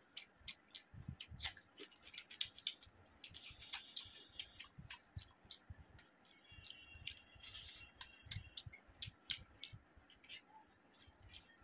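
Fingers mixing and squeezing rice with mashed egg and curry, a run of faint sticky clicks and squishes, then a handful taken into the mouth and chewed near the end.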